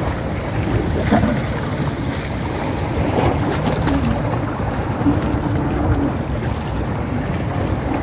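Wind buffeting the microphone over sea waves washing against the shore: a steady rumbling noise.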